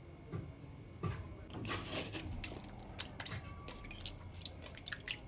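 Fresh soya bean curd wrapped in a wet cloth is squeezed by hand over a basin. The pressed-out whey drips and splashes into the bowl, with wet squishing and an irregular run of small clicks and splats.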